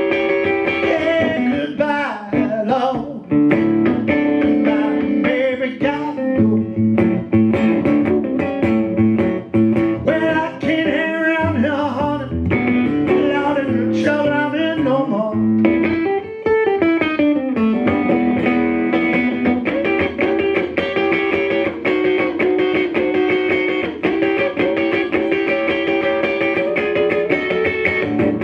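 Live solo blues played on an amplified resonator guitar, fingerpicked, with some notes gliding in pitch. Singing comes in at times over the guitar.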